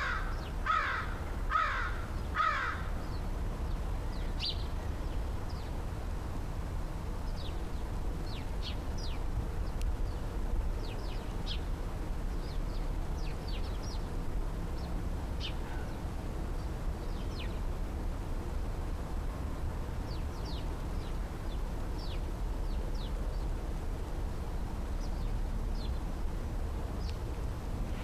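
American crow cawing, four harsh caws in quick succession in the first three seconds. Faint high chirps scattered through the rest over a steady low background rumble.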